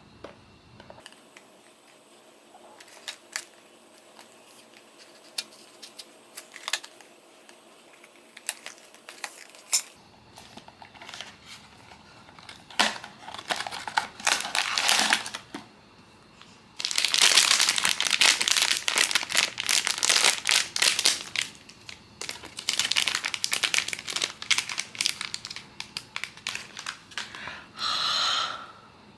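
Blind-box packaging being handled and unwrapped. First come scattered light clicks and taps. From about halfway through there is a long stretch of loud, dense crinkling and rustling of wrapping. A brief smoother rubbing sound comes near the end.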